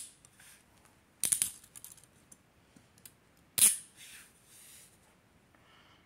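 Metal handcuffs clicking as they are handled: a quick run of clicks a little over a second in and a single sharp click about three and a half seconds in, with faint rattling between.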